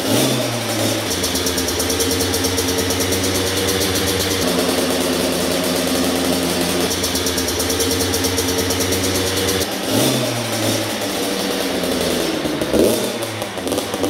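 Kawasaki KX112 two-stroke dirt bike engine idling, with a short throttle blip right at the start and another about ten seconds in. The exhaust note is heard for a stretch through the stock silencer and near the end through a Pro Circuit R304 silencer, which sounds only slightly different at idle.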